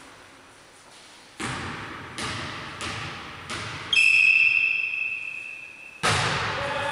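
A volleyball thudding four times, evenly spaced, then a referee's whistle blown in one steady blast of about two seconds, followed by a loud ball strike about six seconds in. Each impact echoes around the large sports hall.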